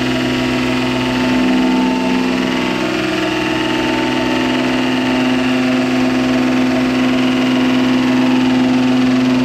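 A metalworking machine tool's motor running steadily with a constant hum and whine; its tone shifts about a second and a half in, when the deepest part of the hum drops away.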